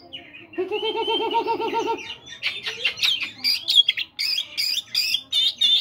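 Oriental magpie-robin singing: a lower, wavering call for over a second, then a fast run of sharp high whistles and chirps.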